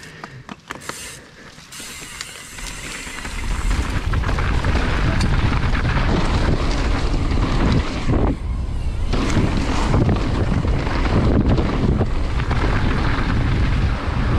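Wind rushing over the microphone and the mountain bike's tyres rumbling and rattling over a dirt trail on a fast downhill descent. The noise builds over the first few seconds as the bike gathers speed, then stays loud and steady, dipping briefly twice.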